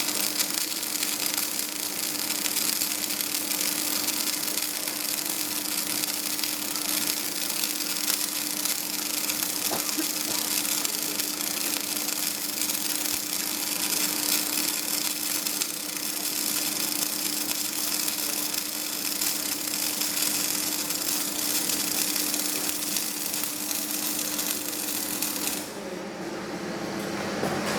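Flux-cored arc welding (FCAW) of a carbon-steel fillet joint in the horizontal 2F position: a steady arc crackle and hiss with a steady hum under it, cutting off about two seconds before the end.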